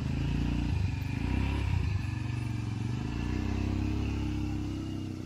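A motor vehicle engine running, its pitch rising and falling with the throttle.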